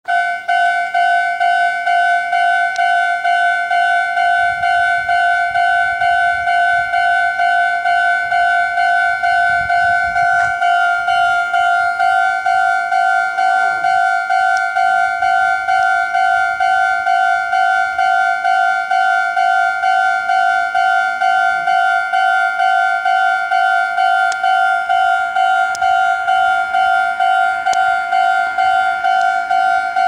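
Japanese railway level-crossing alarm sounding from the loudspeaker on the crossing mast. It rings a fast, even run of identical electronic dings on one steady pitch, the warning that a train is approaching and the barriers are coming down.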